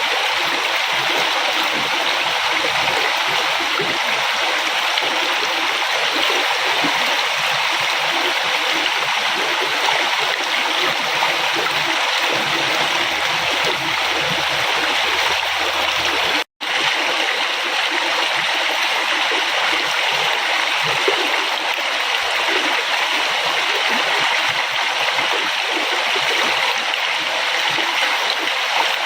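A river flowing in a steady rush of water. It cuts out completely for an instant about halfway through.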